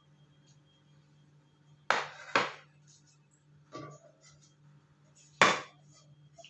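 Cookware knocks: a pan and spatula clunking against the gas stove and the serving bowl as the stir-fry is moved to the bowl. There are two sharp knocks close together about two seconds in, a lighter one near four seconds and the loudest just after five seconds, over a low steady hum.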